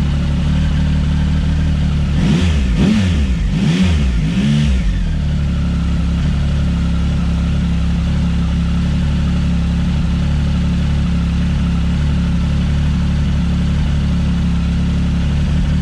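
A Triumph Speed Triple 1050's three-cylinder engine idles steadily. Between about two and five seconds in, it is given a few short blips of the throttle. It is running on fresh oil just after an oil and filter change, to get the oil circulating.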